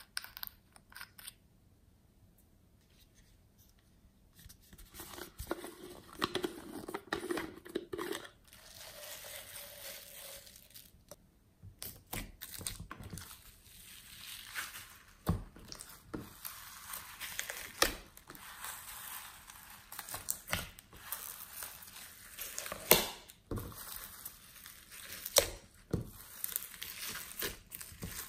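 Glossy slime mixed with foam beads being folded and squeezed by hand in a glass dish, crackling and squishing with sharp little pops and clicks. It starts after a few quiet seconds.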